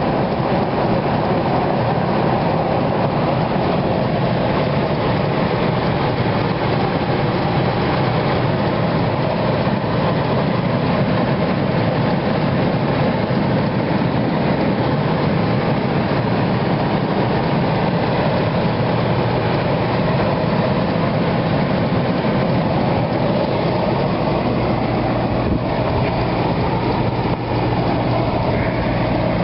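Ford 4.6L Triton V8 truck engine running, a steady continuous rumble.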